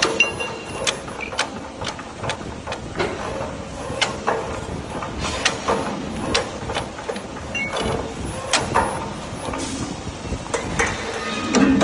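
Hydraulic CNC strip bending machine running while it forms flat steel strip into clamps: a steady hum with irregular sharp metallic clicks and clanks, about one or two a second.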